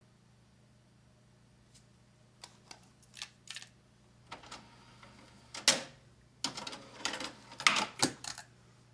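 Sharp plastic clicks and rattles as a cassette tape and its clear case are handled and a disc player is loaded, its tray closing near the end. The loudest click comes a little before the middle, followed by a busier clatter, over a low steady hum.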